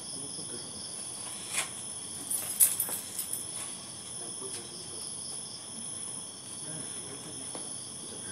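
Crickets trilling steadily, several continuous high-pitched chirring tones layered together. A few sharp clicks or knocks cut in about one and a half to three seconds in, the loudest around two and a half seconds.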